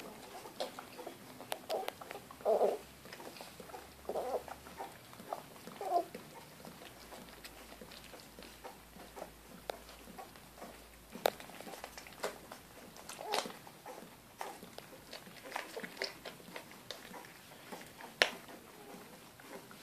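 Three-week-old Airedale terrier puppies giving short squeaks and whimpers while the mother dog licks them, with wet licking and smacking clicks throughout. The calls cluster in the first six seconds.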